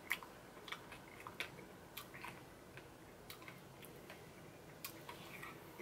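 Faint, scattered soft clicks of a person eating ice cream quietly, mouth and tongue sounds picked up close to the microphone.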